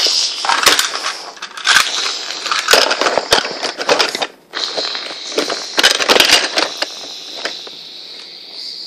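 Plastic Lego bricks clattering and knocking together as a Lego truck is crashed into a Lego building and pieces break off and fall, with handling noise close to the microphone. It comes in several bursts of rapid clicks and clatter, with a brief pause about four and a half seconds in, and quietens after about seven seconds.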